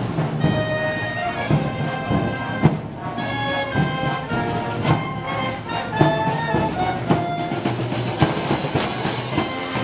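Brass band playing Moros y Cristianos festival music: brass melody over drums, with sharp crashes coming more often near the end.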